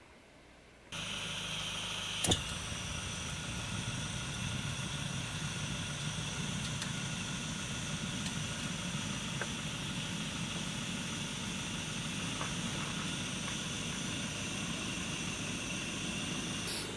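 Beef sizzling steadily in a pan over a camp stove, with one sharp clack about two seconds in.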